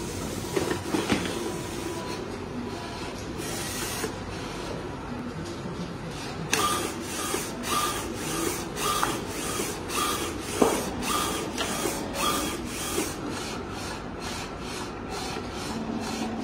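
Digital sheet label cutting machines running with a steady mechanical hum. From about six and a half seconds there is a run of short motor whines and clicks, about two a second, as a cutting carriage starts moving.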